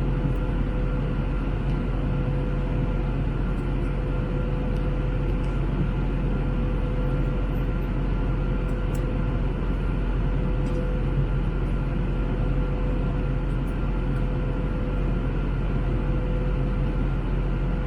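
Steady engine and airflow noise inside the passenger cabin of an Airbus A321, an even rushing sound with a constant hum running through it.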